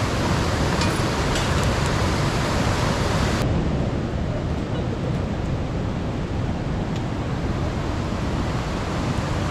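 Steady rushing of a fast white-water river. During the first three seconds a few sharp ticks come from corn kernels being stirred in a hot wok. About three seconds in, the sound abruptly turns duller, losing its hiss, and the river rush carries on.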